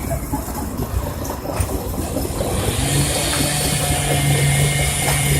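Steam-powered, belt-driven sawmill running, a continuous mechanical rumble; about halfway through it grows louder, with a steady hum and a hiss coming in.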